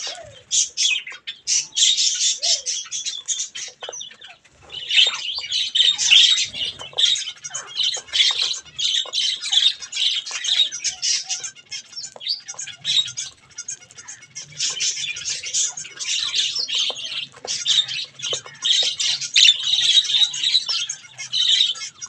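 A flock of budgerigars chattering and chirping, a dense run of high, quick chirps with short lulls about four seconds in and again around twelve seconds.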